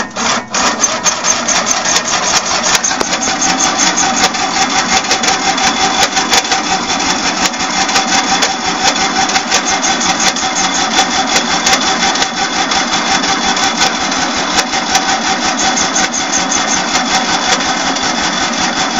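Electric starter cranking the 1997 Craftsman tractor's 19.5 HP V-twin engine on choke, a steady fast churning that goes on and on without the engine catching: a cold no-start in near-freezing weather.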